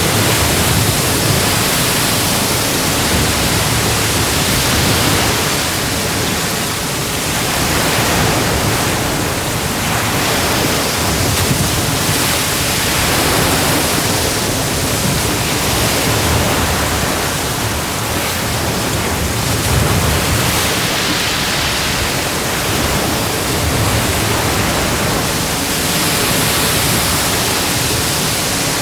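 Ocean waves breaking and washing on a beach in a continuous loud rush, swelling and easing every few seconds.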